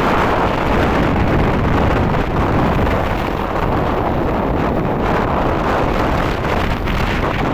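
Wind buffeting the microphone in a steady, loud rumble, mixed with the noise of cars driving along the road.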